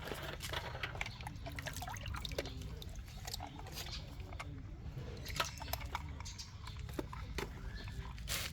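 Irregular light clicks and taps, several a second, over a steady low rumble.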